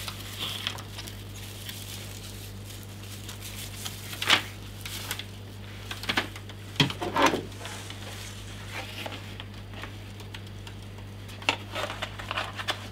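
Scattered rustling and clicking as plastic packaging and a plastic hand-held welding face shield are handled and unpacked, with a few sharper clicks about four and seven seconds in and again near the end. A steady low hum runs underneath.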